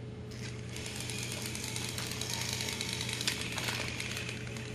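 Battery-operated TrackMaster toy train motors running, a fast steady gear rattle. There is one sharper click a little past the middle.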